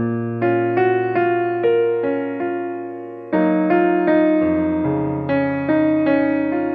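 Background piano music: a slow, gentle melody of single notes struck over fading chords, with a change of chord about halfway through.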